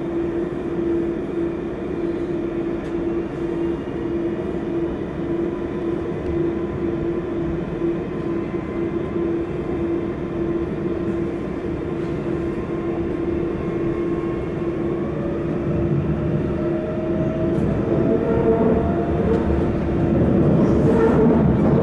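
AM class electric multiple unit running, heard inside the carriage: steady rumble of wheels on rail under a constant electric whine, with a second tone that slowly rises in pitch and the noise growing louder over the last several seconds.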